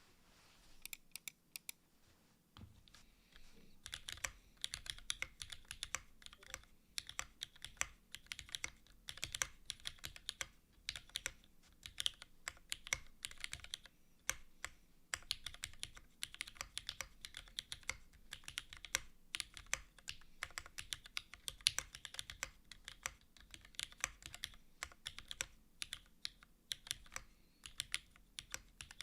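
Typing on a Keycult No.2/65 mechanical keyboard with Cherry HG Black linear switches and GMK Posh keycaps, on an aluminium plate in a gasket mount with no foam. A few scattered keystrokes come first, then steady, fast typing from about four seconds in.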